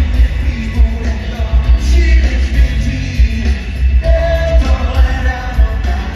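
A pop band playing live in an arena, with a singer over heavy, booming bass and drums, as heard by a phone in the audience.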